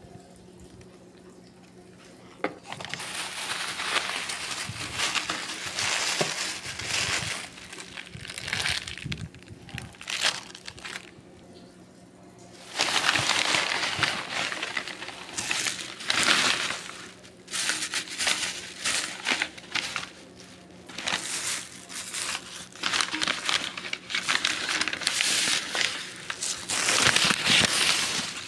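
Plastic shopping bags and wrapping crinkling and rustling in irregular bursts as purchases are handled and unwrapped, starting a couple of seconds in, with a lull of about two seconds a little before the middle.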